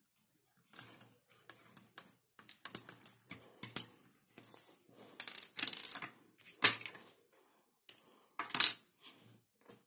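Plastic Lego bricks clicking and clattering as they are handled and pressed together onto a model, a run of sharp irregular clicks with the loudest ones about two thirds of the way through.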